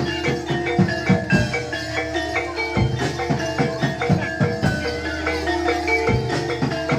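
Javanese gamelan music for a Barongan dance. Metallophones play short ringing notes over quick hand-drum strokes, with a low gong hum held underneath.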